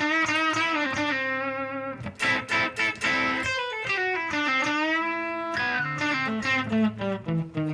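1958 Gibson Les Paul Special electric guitar with P-90 pickups, played through amp modelling: single-note lead lines with string bends and vibrato, quick picked runs and a couple of longer sustained notes.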